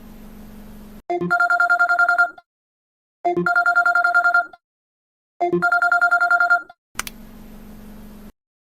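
Classic telephone ringtone: three trilling rings about two seconds apart, each lasting a little over a second.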